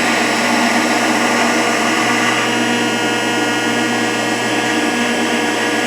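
Rockford hydraulic planer running with its hydraulic pump on: a steady mechanical whine with several held tones over a hiss. The table motion has been engaged and the flow is being turned up to get the table moving.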